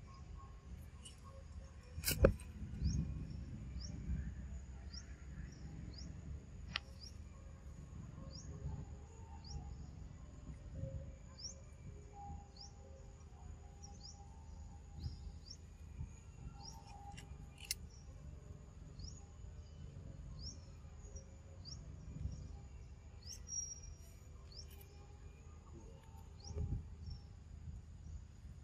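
A bird gives a short, high, rising chirp about once a second, over a low rumble. A sharp click about two seconds in is the loudest sound, and fainter clicks come later.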